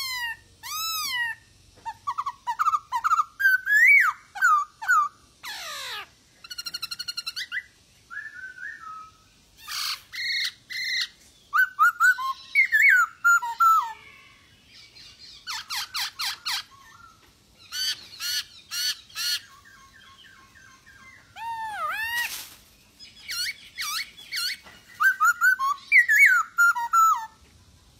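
Male black-throated laughingthrush (poksay Hongkong) singing in full voice. It gives bursts of varied whistled phrases of rising and falling notes, rapid repeated notes and harsh rattling calls, with short pauses between bursts.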